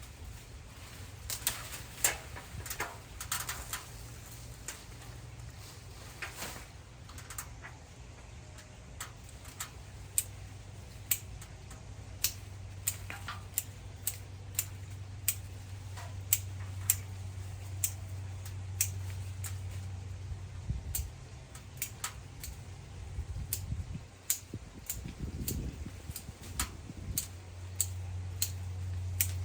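Hand pruning shears snipping again and again: sharp clicks at roughly one or two a second, over a low steady hum.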